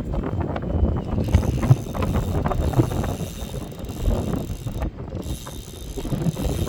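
Mechanical clicking and rattling over a heavy, uneven rumble of wind on the microphone.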